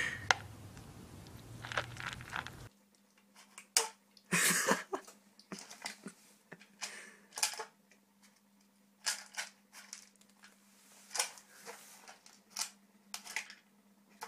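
A kitten eating dry kibble from a plastic bowl: irregular crunches and clicks, over a faint steady hum.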